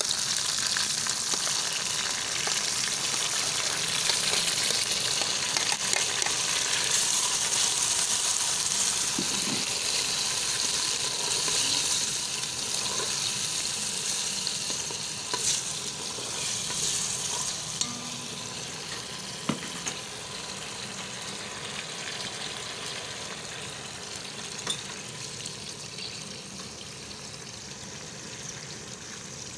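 Hot oil sizzling in an aluminium pot as chopped tomatoes and green chillies are added to fried cumin and onion and stirred with a wooden spatula. The sizzle is strongest at first and dies down gradually as the wet vegetables cool the oil, with a few light knocks of the spatula against the pot.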